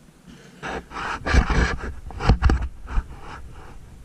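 A man breathing heavily in a series of loud, uneven huffs close to a helmet-mounted microphone, each breath hitting the mic with a low rumble.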